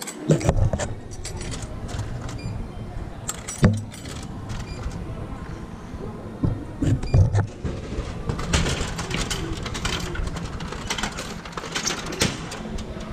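Handling noise from an action camera jostled against clothing while being carried at walking pace: rubbing, a low rumble and many scattered clicks and knocks.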